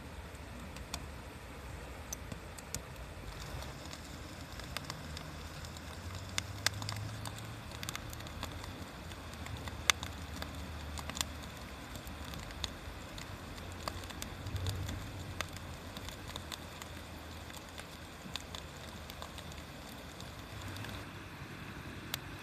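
Wood fire crackling, with irregular sharp pops and snaps over a soft hiss, and a low steady rumble underneath.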